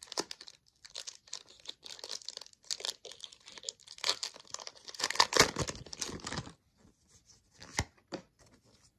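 Foil Pokémon card booster pack being torn open and crinkled: a dense crackling rustle, loudest about five seconds in, that then thins to a few scattered ticks and one sharp click near the end.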